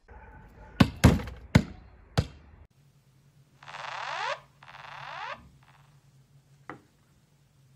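A basketball bouncing hard about four times, each bounce a short thunk. After a cut come two short rasping buzzes, then a single sharp tap as a hand knocks a smartphone lying on a wooden table.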